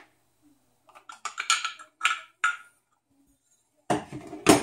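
Aluminium injection mould being taken apart by hand. Metal pieces clink and scrape a few times, with a short ring after some, then a sharp clank near the end as a part is set down on the bench.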